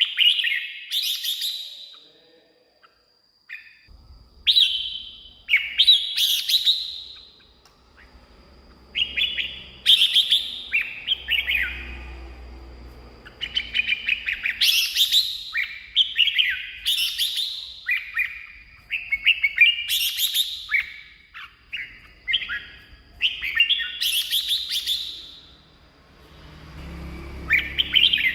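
Red-whiskered bulbul singing: short, bright warbled phrases of quick notes, one after another with brief pauses between them.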